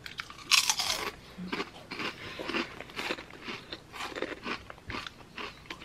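Two people biting and chewing thick ridged Ruffles Double Crunch potato chips: irregular crunching, sharpest about half a second in.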